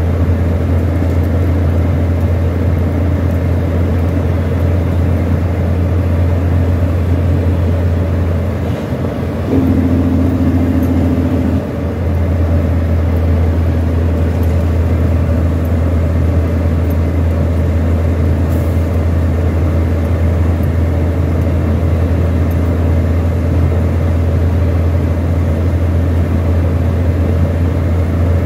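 In-cab drone of a semi truck's Detroit Diesel 12.7-litre six-cylinder engine pulling at highway speed, with road noise. About nine seconds in, the deep engine note drops out briefly and a higher steady tone sounds for about two seconds before the usual drone returns.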